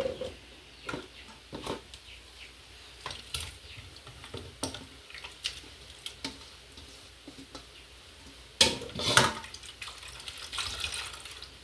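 Wet grated coconut being squeezed by hand, coconut milk dripping and splashing into a bowl in scattered small splashes, with a louder burst of splashing about two-thirds of the way through.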